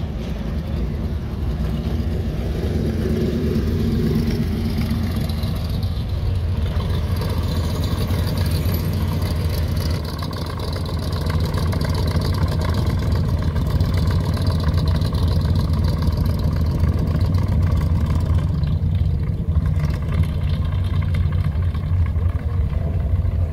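Sports-car V8 engines rumbling low as they drive slowly past: a C6 Corvette convertible pulls away with its revs rising briefly a few seconds in, then a Shelby Cobra-style roadster's engine runs at a steady low rumble as it rolls by.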